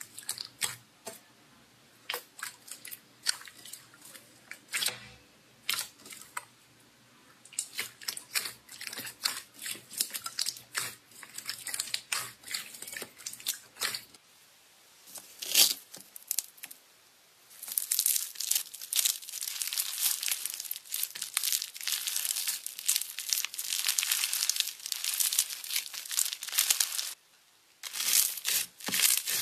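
Slime being squeezed and pressed by hand: scattered sticky clicks and pops, turning about halfway through into a dense, continuous crackle.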